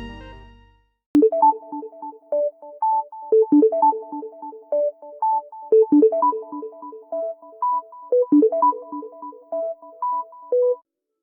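A Samsung Galaxy A70 stock ringtone: an electronic melody of short, quick notes that starts about a second in and stops just before the end. The tail of the previous ringtone fades out at the very start.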